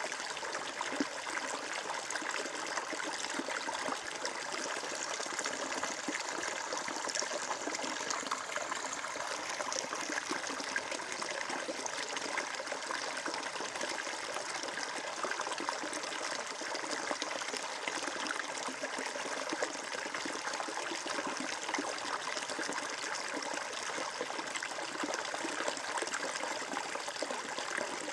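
Flowing water of a stream, trickling steadily.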